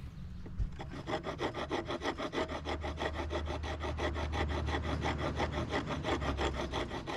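Wooden block being filed by hand with a wood rasp: quick, even back-and-forth strokes, several a second, scraping across the grain.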